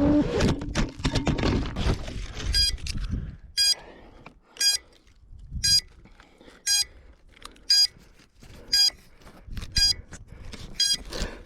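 Knocks and rustling, then an electronic beeper giving short high beeps about once a second.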